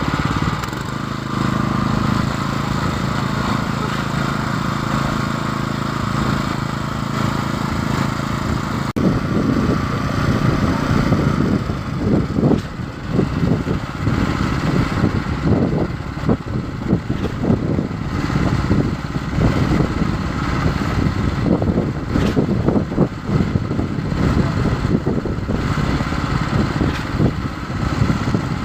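Concrete pump truck engine running. Steady for the first nine seconds; after an abrupt change about nine seconds in, the sound turns rougher and uneven with rapid surges.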